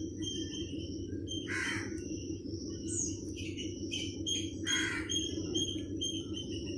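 A crow cawing, two harsh calls about three seconds apart with a couple of fainter ones between, over a repeated high thin chirping and a steady low hum.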